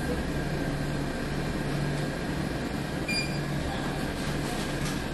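Steady low hum and hiss of a convenience store's background machinery, such as refrigerator cases and air conditioning. A short high electronic beep sounds about three seconds in.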